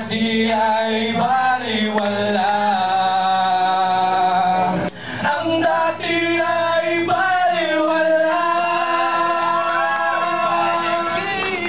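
A man singing a slow song through a microphone over music, holding long, wavering notes, with a short break about five seconds in.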